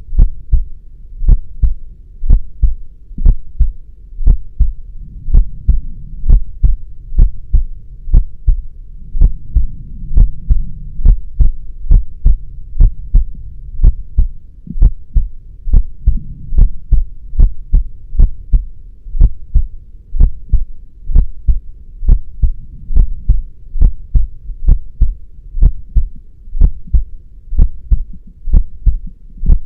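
A heartbeat: steady low double thumps, lub-dub, about once a second, over a faint low hum.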